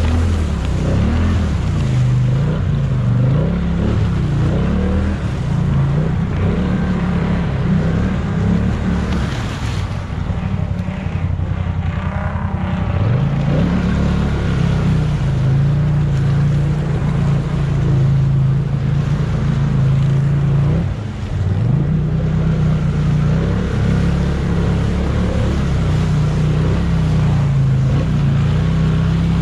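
ATV engine running hard, its pitch rising and falling again and again as the throttle is worked, with brief drops in revs about twelve and twenty-one seconds in.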